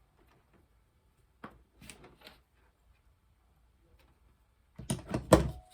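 Clicks and clatter of hand tools and small connector parts being handled: a few light clicks about a second and a half in, then a quick run of louder sharp clicks near the end.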